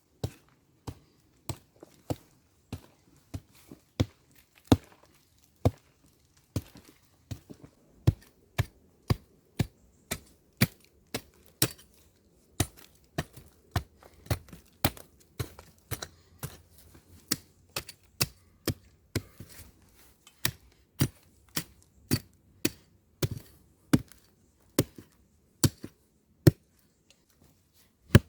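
Pulaski axe chopping with a steady run of sharp strikes, roughly one and a half to two a second.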